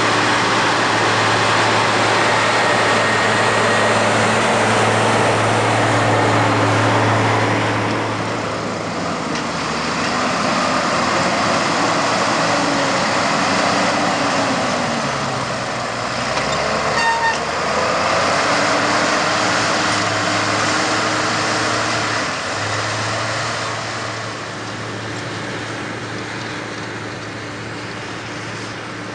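Claas Atles 936 tractor's diesel engine running steadily under load while ploughing. Around the middle the engine note drops, slides down and back up in pitch, then settles again, with a short high beep about halfway through; the sound fades slightly toward the end.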